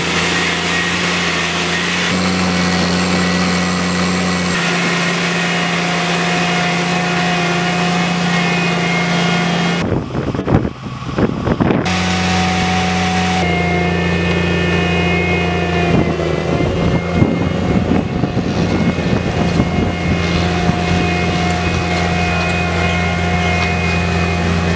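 BRON 450 tracked drainage plow working a field, its engine running at a steady speed with a constant drone. About ten seconds in the drone briefly gives way to a rougher, unsteady rumble.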